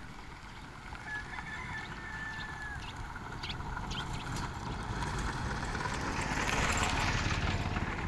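Muddy water rushing down a narrow irrigation canal, a steady noisy rush with low rumble, swelling louder about six seconds in. A short high tone sounds about a second in.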